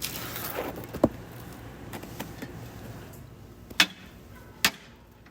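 A few sharp metallic clanks and knocks from handling the antique water heater's metal parts: one about a second in, a couple of light ticks, and two louder knocks near the end, over a faint steady rush.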